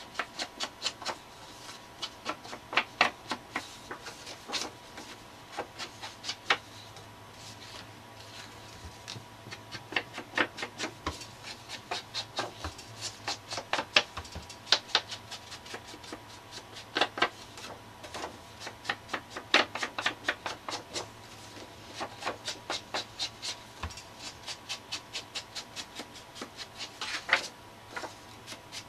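Distress ink pad dabbed and rubbed along the edges of a paper tag: runs of quick soft taps, several a second, broken by short pauses.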